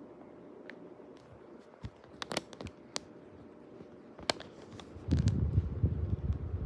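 Hampton Bay Raleigh II ceiling fan running with a faint hum, and a few sharp clicks in the middle. From about five seconds in, a loud, fluttering low rumble of moving air buffets the microphone.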